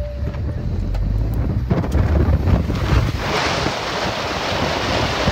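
Wind buffeting the microphone of a camera held outside a car, a low rumble with a rushing hiss that grows louder and brighter about three seconds in.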